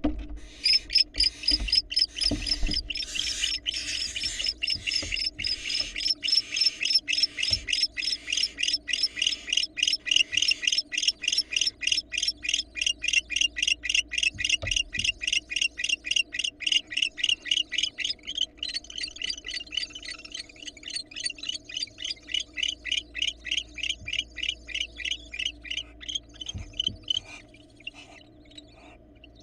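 Barn owls in a nest box giving a long run of fast, raspy chittering calls, several a second, that thin out and stop near the end. A few dull thumps from the birds moving in the box come in the first seconds and now and then after.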